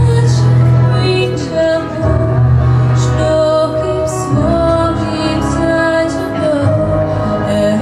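A girl singing into a handheld microphone over backing music; the bass holds long notes that change about every two seconds.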